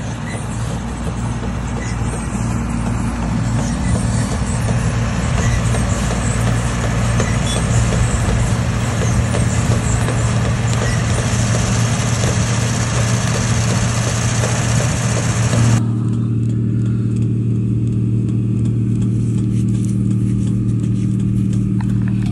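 Heavy farm machinery running steadily: a constant low engine hum under a loud rushing noise. About two-thirds of the way through, the rushing noise cuts off abruptly and only the low engine hum goes on.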